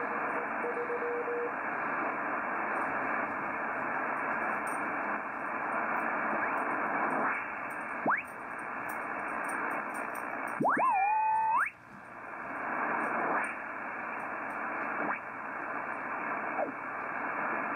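Yaesu FTdx-3000 HF transceiver's receiver hiss as the dial is tuned up the 40-meter band, with a Morse tone keying briefly at the start, a quick rising whistle about eight seconds in, and a short pitched squawk about ten seconds in as signals are tuned past. The band sounds nearly empty, which the operator puts down to solar minimum.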